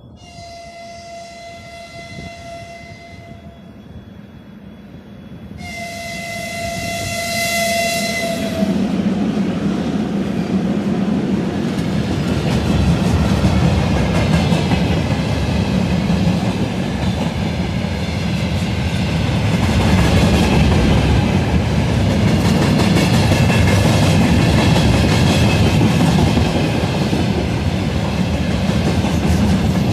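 3ES4K 'Donchak' electric freight locomotive sounding two long steady horn blasts, then approaching and running past with a loud rumble and the clickety-clack of wheels over rail joints.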